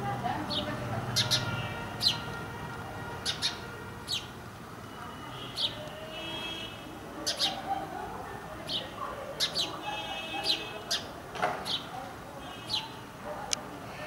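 Indian house sparrow chirping: short sharp chirps repeated at irregular intervals, with a couple of quick rattling notes around the middle and about ten seconds in.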